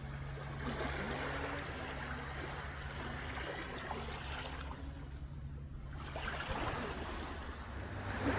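Small surf washing onto a sandy beach, a steady hiss of water.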